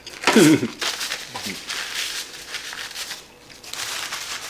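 A short voice sound, then a hand handling something close to the microphone: rustling and crinkling for about two and a half seconds. It breaks off briefly and comes back near the end.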